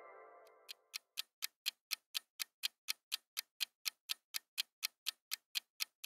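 Clock-tick countdown sound effect running with the quiz timer, sharp even ticks about four a second, starting just under a second in. A ringing tone fades out at the start.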